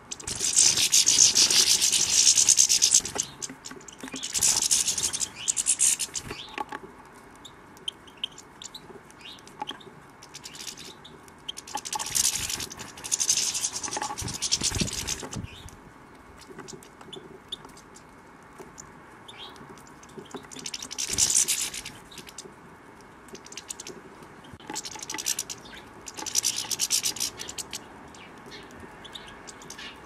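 European goldfinches twittering in several scratchy, high-pitched bursts of one to three seconds each, the loudest at the start. A dull thump comes about halfway through.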